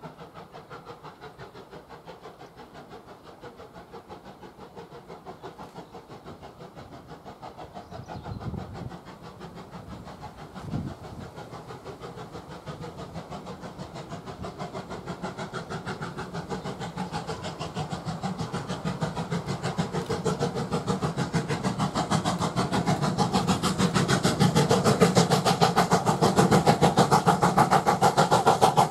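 Steam locomotive hauling a passenger train under steam, its rapid chuffing exhaust beat growing steadily louder as it approaches. There are two brief low thumps about a third of the way in.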